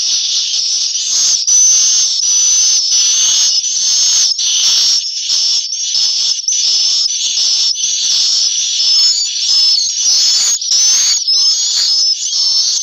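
Swiftlets twittering in a swiftlet nesting house: a dense, unbroken chorus of many overlapping high chirps and trills from the birds.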